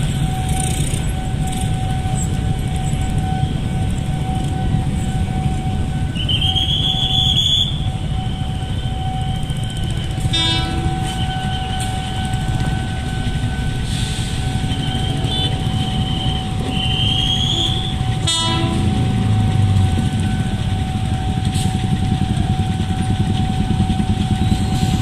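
Level-crossing warning alarm sounding one steady tone over the low rumble of idling motorcycles. A high-pitched train horn blows twice, about six seconds in and again near seventeen seconds, each note rising briefly before it holds.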